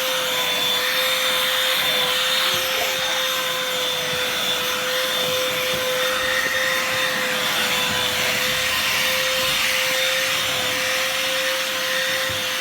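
Bosch GAS 18V-1 18-volt cordless handheld vacuum running steadily while vacuuming a tabletop: a constant whine over the rush of air, with no change in speed.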